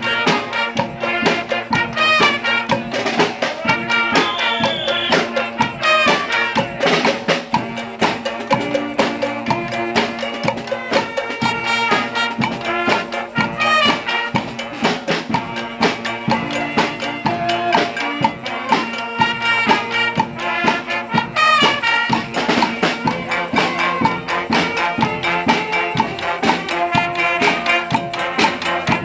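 Live street band playing: brass horns over a steady beat of drums and percussion.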